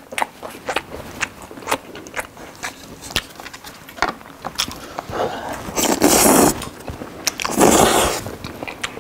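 Close-up eating sounds: wet clicks and smacks of chewing and chopsticks, then two loud, long slurps of saucy noodles about six and seven and a half seconds in.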